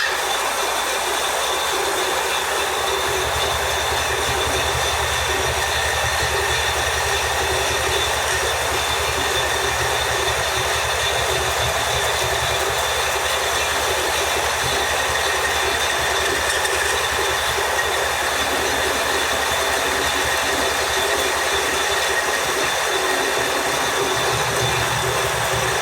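Metal lathe running while cutting a shaft: a steady mechanical drone with a high, even whine over it.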